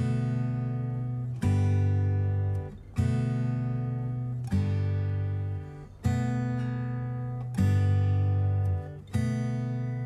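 Background music: acoustic guitar strumming slow chords, a new chord about every second and a half, each left to ring and fade.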